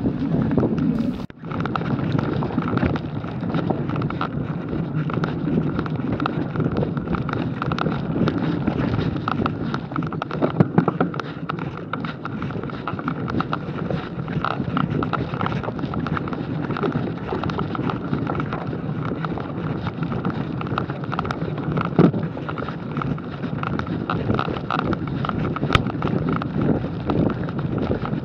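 Mountain bike ridden over a dirt trail covered in dry fallen leaves: steady tyre and wind noise on the camera microphone, with the bike rattling and a few sharp knocks from bumps, about a third of the way in and again at about three quarters.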